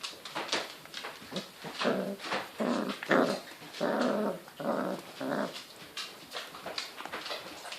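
Puppies vocalising in a quick run of short sounds, each under half a second long, with sharp clicks in between.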